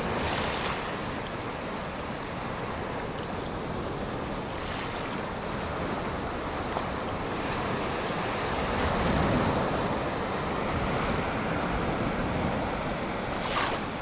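Sea waves breaking and washing up a beach: a steady rush of surf that swells to its loudest a little past the middle and then eases off again.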